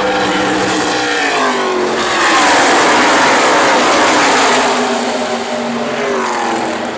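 A pack of NASCAR Truck Series race trucks passing at full speed, many V8 engines sounding at once, their pitch falling as they go by. Loudest about two to four and a half seconds in, then fading.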